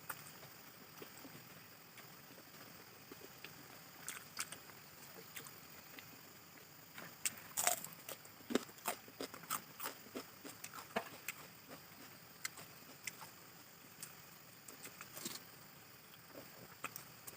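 A person eating: scattered wet clicks and smacks of chewing and mouth sounds, most frequent through the middle of the stretch, over a faint steady background.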